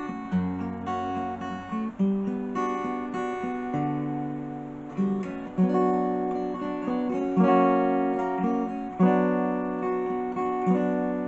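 Takamine acoustic guitar playing an instrumental introduction to a hymn: chords strummed and left to ring, a new one struck every second or two.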